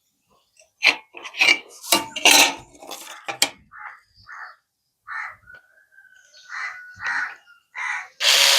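Knocks and clinks of tools being handled, then several short calls from a bird. Near the end a power drill starts up and runs steadily.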